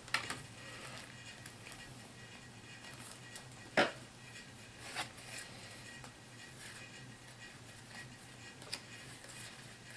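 Faint handling of small plastic miniatures and their packaging: a few isolated light clicks and taps, with one sharper click about four seconds in.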